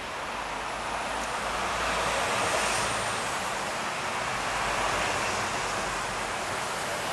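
Street traffic noise from passing vehicles, a steady rush that swells about a second in and stays up.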